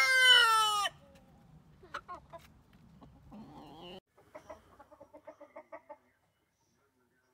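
A rooster's crow ends in its first second on a long falling note, followed by a few faint hen clucks. After about four seconds a domestic turkey gives a quick run of short, evenly spaced calls.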